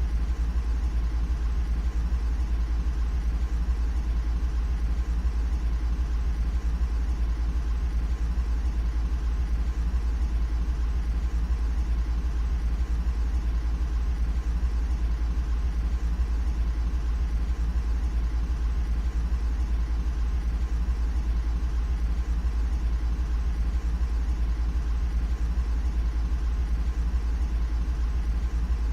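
A steady, heavy low rumble like a machine running, with a few faint steady hum tones above it and no change in level or pitch.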